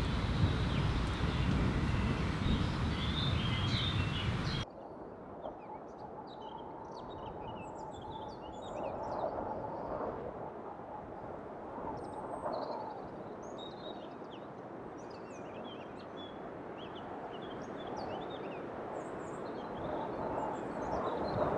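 A loud, steady rushing noise cuts off abruptly about five seconds in. It gives way to many small birds chirping and twittering over a quiet background.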